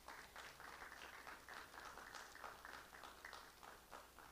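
Faint applause from a small group: many scattered hand claps that thin out near the end.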